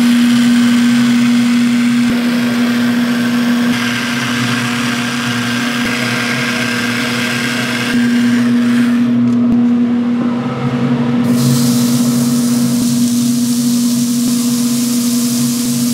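Steady machine hum holding one low tone, under a hiss that shifts in level a few times and briefly loses its highest part about two-thirds of the way through.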